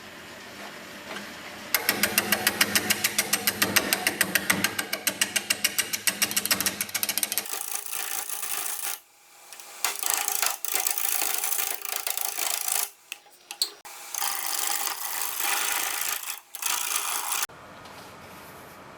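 Turning tool cutting a spinning wooden bowl blank on a wood lathe. For the first few seconds the cut comes with a fast, even ticking. After that it turns to a hissier scraping, broken by a few short pauses, and stops abruptly near the end.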